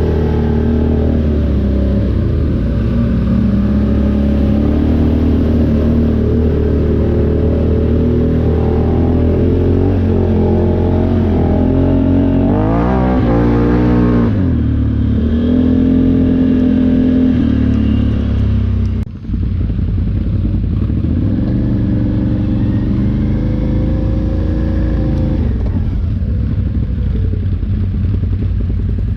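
ATV engine running under way, its pitch rising and falling quickly as it revs near the middle, with a brief drop in sound about two-thirds through.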